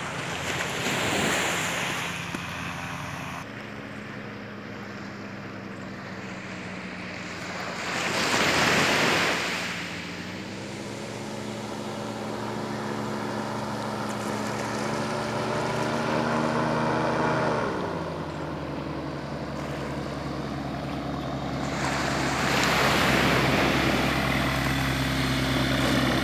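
Powered parachute's engine and propeller droning as it flies past, its pitch climbing slowly for several seconds and then dropping sharply about two-thirds of the way through. Three swells of rushing noise rise and fall over it.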